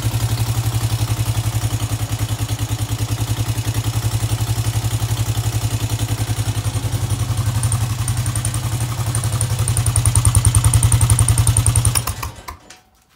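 2005 Honda Foreman 500 ES single-cylinder ATV engine running steadily. It gets a little louder just before it stops near the end.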